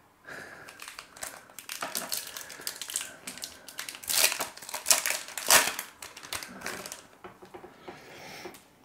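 Foil wrapper of a baseball card pack crinkling and tearing as it is opened by hand, with the loudest crackles about four to six seconds in.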